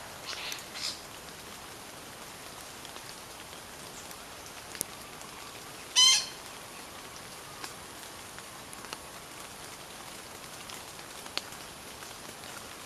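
A bird calling: a few short high calls right at the start, then one loud, brief call about six seconds in, over a steady background hiss.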